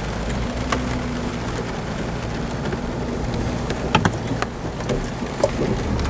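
Jeep Wrangler running low and steady as it crawls over a rough rocky trail, heard from inside the cab, with scattered knocks and rattles as it bounces, loudest a bit after the middle. Rain on the Jeep adds a light patter.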